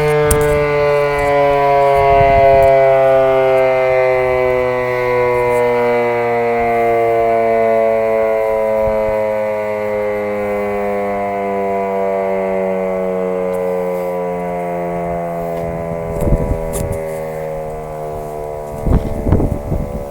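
1942 Federal Model 5A electromechanical siren winding down: its rotor spins down after a test run, the single loud tone falling slowly and steadily in pitch and fading gradually. A few short bumps sound near the end.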